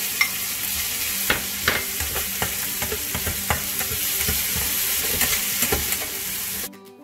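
Pork belly, garlic, onion, mushrooms and dried shrimp sizzling as they stir-fry in a pan, with a wooden spatula scraping and knocking against the pan as it stirs. The frying cuts off suddenly near the end, giving way to quiet background music.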